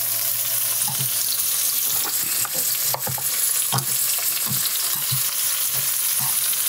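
Mirepoix and charred squash sizzling steadily in a pot as the vegetables sweat, with scattered clicks and taps of metal tongs.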